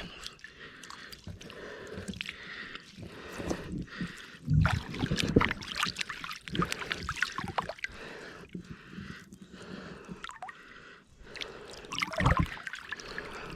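Water dripping and splashing with irregular clicks and knocks, and two dull thumps, about four and twelve seconds in.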